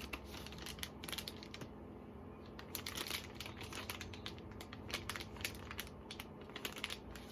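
Plastic wrapping crinkling and rustling as parts are handled and unwrapped, in a run of irregular short rustles and small clicks.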